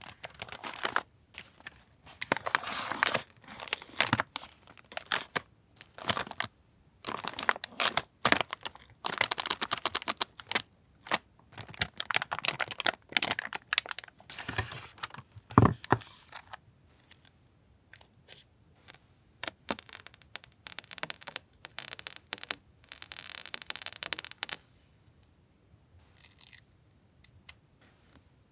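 Paper and plastic packaging handled close to the microphone: crinkling, rustling and tearing mixed with many small taps and clicks. The handling is busy for the first half, with one heavier thump about 16 seconds in, then thins out to a longer rustle and a few sparse clicks.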